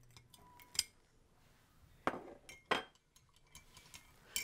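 A spoon clinking against a cup a few times, three clearer clinks among fainter taps, as spoonfuls of grated ginger are tipped into tea.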